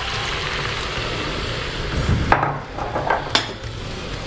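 Chicken stock being poured into a pot, a steady hiss of liquid, then two sharp knocks of kitchenware, a little over two seconds in and again about a second later.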